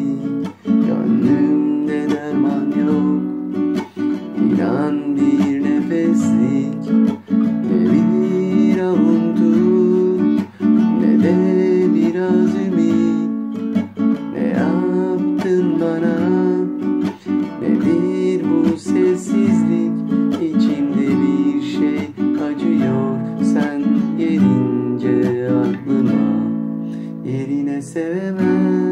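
Nylon-string classical guitar played continuously, chords strummed and picked in a steady rhythm.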